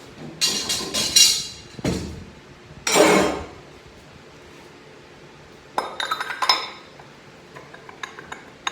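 Metal parts of a 6HP21 automatic transmission clinking and clattering as they are handled on the bench during teardown: several sharp clanks and a longer scrape in the first few seconds, another cluster of clinks a little past halfway, and light ticking near the end.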